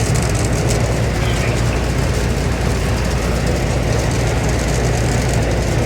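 Gleaner M3 combine running steadily at a loud, even level while it unloads corn into a dump pit, its engine humming low under a dense mechanical rush.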